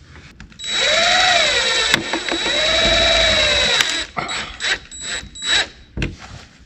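Cordless drill/driver driving screws to mount an LED light fixture: two long runs, each speeding up and slowing down as the trigger is squeezed and eased, then a few short bursts near the end.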